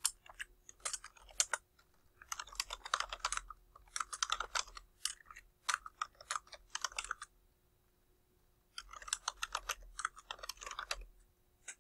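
Computer keyboard typing in quick runs of keystrokes, with a pause of about a second and a half past the middle.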